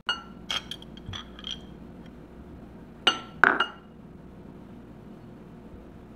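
Table knife clinking against a glass jam jar and a plate: several light ringing clinks in the first second and a half, then two louder ones a little after three seconds in.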